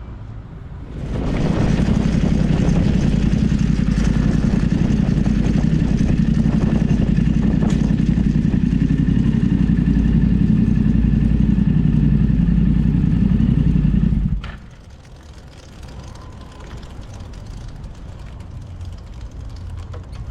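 Yamaha Ténéré 700 motorcycle's parallel-twin engine running steadily. It starts about a second in and stops abruptly about fourteen seconds in, leaving a quieter low background hum.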